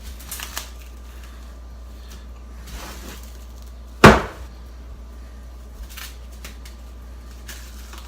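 One sharp knock of a hard object against a kitchen counter about four seconds in, with a few faint handling clicks and rustles around it over a steady low hum.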